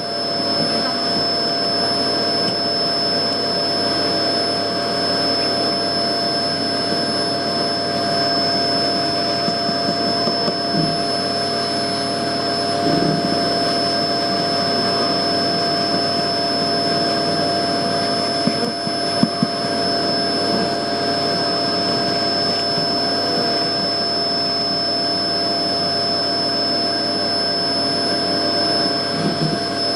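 Vacuum motor running steadily with a constant whine, a bee vacuum sucking up honeybees during a colony removal; a few faint knocks.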